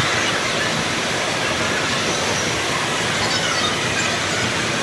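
Steady rushing of water through an indoor waterpark hall, an even wash of noise with no breaks.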